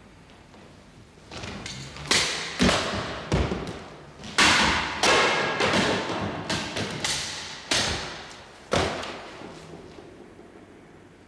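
A katana slicing through rolled straw targets in quick succession: a string of about ten sharp cuts and thuds over several seconds as the blade strikes and the cut pieces drop onto the wooden floor, each echoing in the hall.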